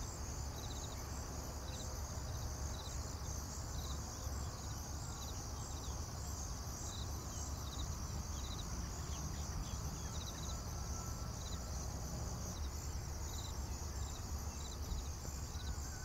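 Insects chirping in short, regularly repeated pulses, over a steady low hum.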